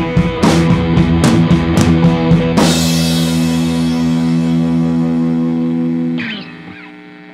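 Background rock music: drums and guitar, then the drums stop about two and a half seconds in and a held guitar chord rings on. It fades out near the end.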